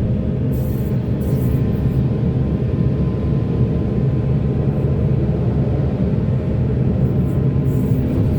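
Heavy machinery's diesel engine running steadily at a constant pitch, with no revving or impacts.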